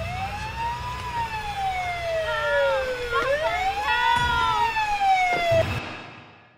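Police siren wailing, its pitch rising and falling slowly about every three seconds, cut off abruptly near the end.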